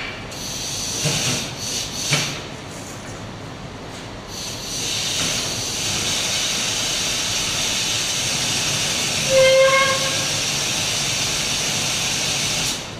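Hoist lifting the top section of a foundry sand muller: two knocks, then a steady hiss that runs for several seconds and cuts off abruptly. A brief whine sounds about two-thirds of the way through.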